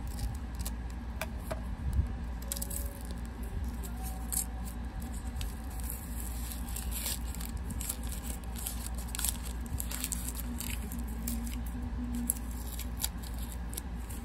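Packaging being unwrapped and handled by hand: irregular crinkling and rustling with scattered small clicks.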